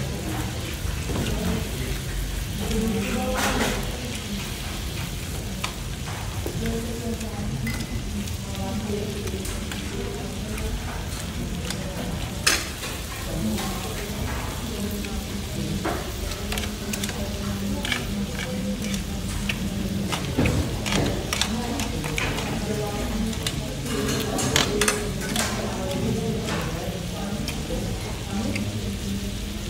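Pork and shrimp sizzling and frying on a hot tabletop grill pan as they are turned, with occasional sharp clicks of utensils against the pan.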